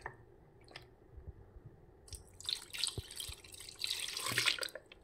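Water poured from a plastic bowl onto marinated beef pieces in a stainless steel pot: a splashing pour that starts about two seconds in and stops sharply just before the end. A few small clicks come before it.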